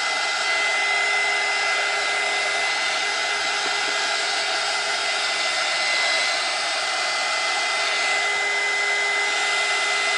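Handheld blow dryer running steadily, a constant rush of air with a steady whine at one fixed pitch, drying wet paint on a small canvas.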